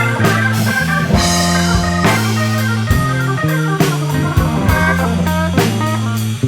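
Band playing an instrumental passage with organ and guitar over bass and drums, a drum hit about once a second; no singing.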